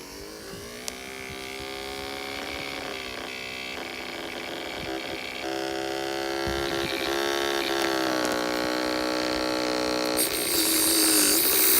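LG dishwasher drain pump motor running on the bench, a steady electric hum that wavers slightly in pitch and grows louder. A hiss joins about ten seconds in.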